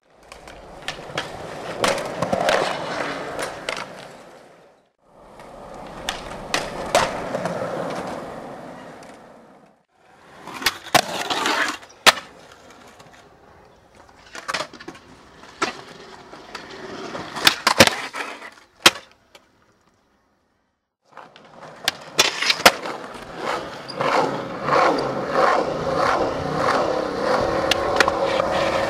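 Skateboard wheels rolling on smooth concrete, broken by sharp clacks as the board is popped, hits ledges and lands. It comes in several short runs separated by brief silences.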